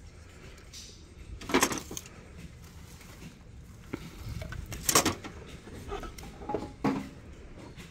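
Knocks and light clatter of wooden decor pieces being handled and set down on a metal store shelf. There is a sharp knock about one and a half seconds in, the loudest about five seconds in and another near the end, with smaller ticks between, over a low steady room hum.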